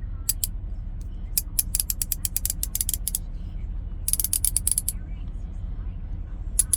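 Olsa Tools 3/8-inch drive ratchet turned back and forth by hand, its pawl clicking over the teeth in quick runs of about eight clicks a second, with a faster, denser run about four seconds in.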